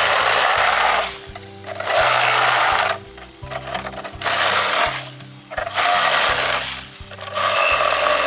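Saw cutting through bamboo in regular rasping strokes, each about a second long and one roughly every two seconds, over background music.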